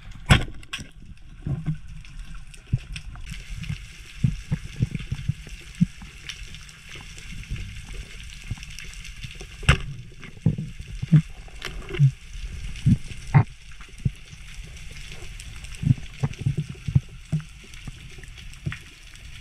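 Underwater sound picked up by a spearfisher's camera: a steady low rumble of moving water with a faint hiss, broken by scattered sharp clicks and knocks. The sharpest clicks come about a third of a second in and again near ten seconds.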